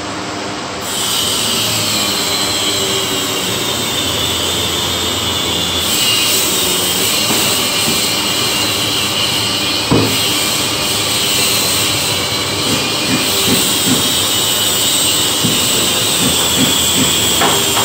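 Steady high-pitched whine of an electric power-tool motor, starting about a second in, with a sharp click near the middle and scattered knocks in the second half.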